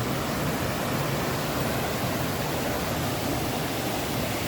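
Steady rushing of water from a cascading mountain creek and waterfall.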